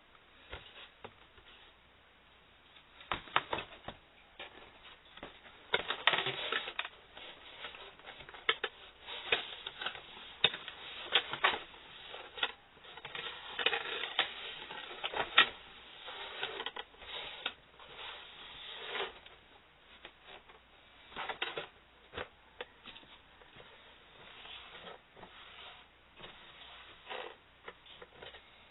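Handling noises from an emergency lamp: irregular clicks and taps with stretches of rubbing or rustling, busiest in the middle and sparser near the end.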